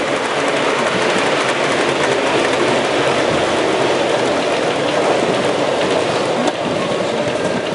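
7mm-scale model train running close by, the steady rolling rattle of its metal wheels on the track as the coaches pass.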